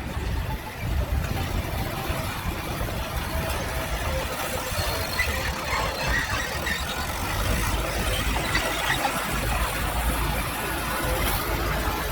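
Diesel engine of earthmoving machinery running steadily, with high metallic squeals coming and going over it, thickest in the middle.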